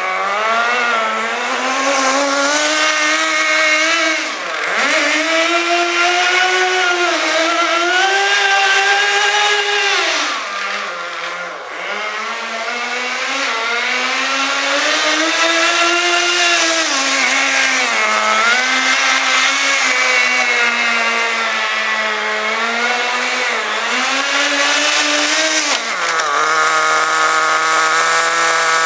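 Small .11 nitro glow engine of a Kyosho Nitro Blizzard RC vehicle, revving up and down continuously under throttle. It drops off twice briefly. Near the end it settles to a steady idle.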